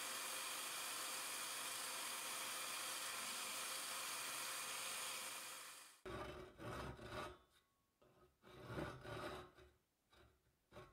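Electric bench disc sander running steadily, with a wooden hammer handle pressed against the sanding disc; it cuts off abruptly about six seconds in. Then a few rasping strokes of a fine-toothed handsaw cutting into the end of the wooden handle.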